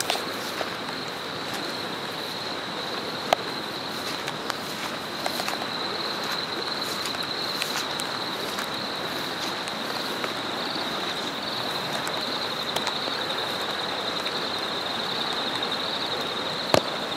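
Steady rain hiss with scattered drips tapping close by, including a couple of sharper taps, one about three seconds in and one near the end. Under it runs a continuous high-pitched insect trill.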